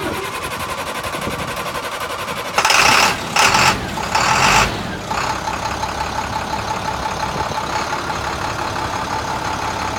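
2005 International 4300 truck's diesel engine being started: the starter cranks with a fine, even rhythm for about two and a half seconds, then the engine catches with a few loud bursts and settles into a steady idle about five seconds in.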